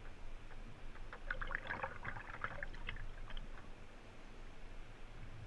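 Wing paddle blade working in calm water beside the kayak: a run of small splashes and drips about a second in, lasting a couple of seconds, then another short splash near the end.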